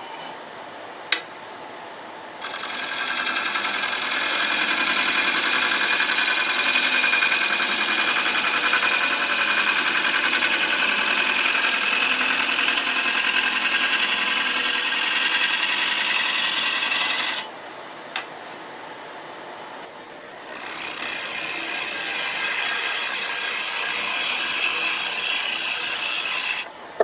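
A woodturning tool cutting wet pecan on a spinning lathe in two long passes, the first about fifteen seconds and the second about six, with a quieter pause between them. Both passes are taken down to a smaller diameter.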